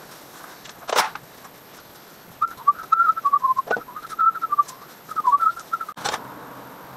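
A person whistling a tune in short notes that step and slide up and down, starting a couple of seconds in and running for about three and a half seconds. A sharp knock comes about a second in, and a short clatter follows as the whistling ends.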